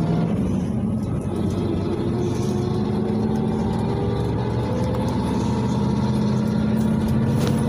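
A PAZ-32054 bus's petrol V8 engine running as the bus drives, heard from inside the passenger cabin with road rumble. Its pitch rises gradually through the second half, and there is a brief sharp click near the end.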